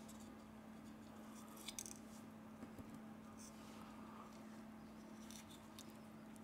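Near silence over a steady low hum, with a few faint, short clicks and taps as the phone's motherboard is handled and lifted out of its plastic and metal frame.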